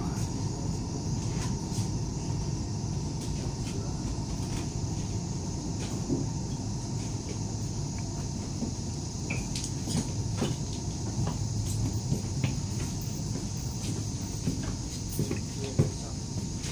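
Cabin noise of a Chinese high-speed train in motion, heard from the vestibule: a steady low rumble with a hiss above it. Scattered clicks and rattles of the car's interior fittings, with one sharper knock near the end.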